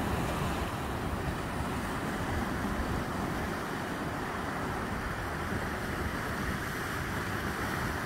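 Ocean surf washing steadily on the shore, a continuous rush of waves, with wind noise buffeting the microphone.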